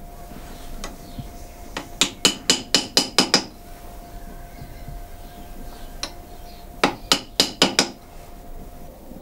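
Two quick runs of light hammer taps on metal, about seven taps and then five, each tap with a short ring. A cutler is tapping a metal bolster onto a knife handle.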